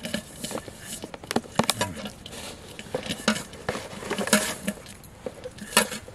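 Irregular rustling, clicking and light clinking as fishing gear is handled by hand: a plastic jar, a woven plastic bag and metal pots.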